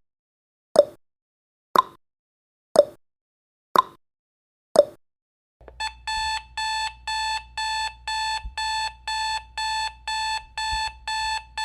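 Countdown timer ticking once a second for its last few seconds. About halfway through, as it reaches zero, an alarm-clock beep starts, repeating evenly a little over twice a second.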